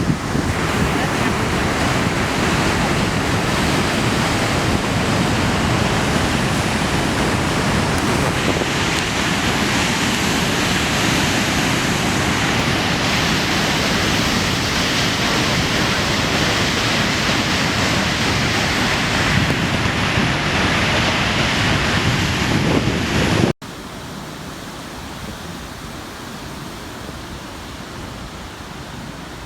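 Ocean surf breaking and churning on a rocky shore in a heavy swell, with wind buffeting the microphone. About three quarters of the way through it cuts off abruptly to a quieter, steady wash.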